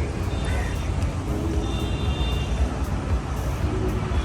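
Steady low rumble of road traffic with a general street-noise haze.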